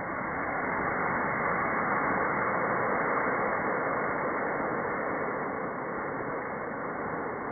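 Steady rushing wind noise, swelling slightly and then easing, with no rocket motor heard. The Estes C6-5 motor has burnt out and the rocket is coasting silently on its delay.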